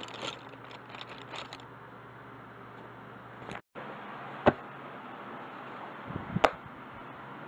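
Handling noise as things are picked up and set down: a flurry of small clicks and rustles at first, then two sharp knocks, one about halfway and one near the end with soft thumps just before it, over a steady hiss. The sound drops out briefly a little after three seconds.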